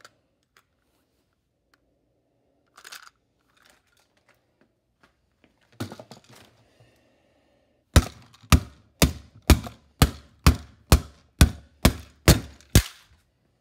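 A plastic computer mouse being struck hard: one heavy blow about six seconds in, then a fast run of about eleven sharp cracking blows, roughly two a second.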